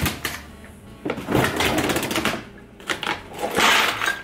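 Things clattering and rattling as they are moved about inside an open refrigerator: a sharp click at the start, then several uneven bursts of clatter, the loudest near the end.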